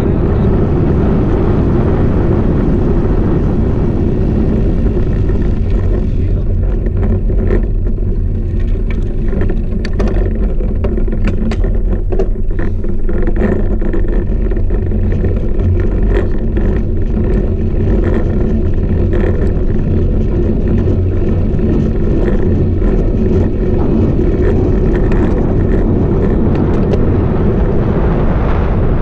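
Loud, steady wind rumble and tyre noise picked up by a handlebar-mounted action camera on a moving road bike. Scattered clicks and knocks come through over the middle stretch.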